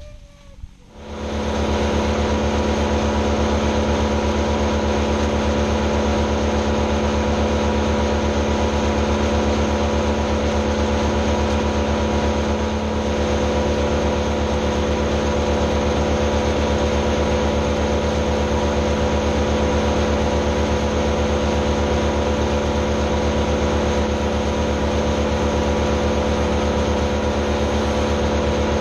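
Two-stroke chainsaw held at high revs while cutting up the felled maple trunk. It starts about a second in and then runs steadily at an even, high pitch.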